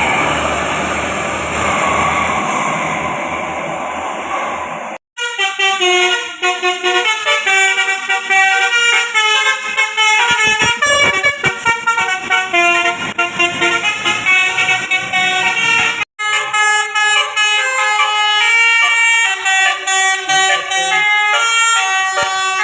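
Steady road traffic noise for about five seconds, then an abrupt change to a bus's 'telolet basuri' musical horn playing a quick tune of several notes at once, with a brief break about 16 seconds in.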